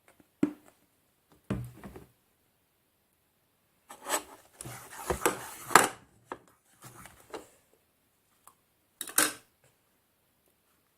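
Scrapes, rubs and knocks from handling the slime container and tools while glue is added and worked into the slime. The sounds come in short bursts, with the busiest stretch near the middle and a sharp knock near the end.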